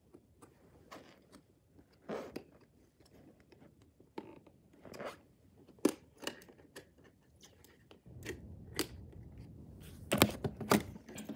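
Cardboard and plastic packaging of a vinyl-figure box being handled and opened: scattered crinkles, scrapes and light taps. The crackling grows busier about two-thirds of the way in, with rumbling handling noise near the end as the phone is picked up.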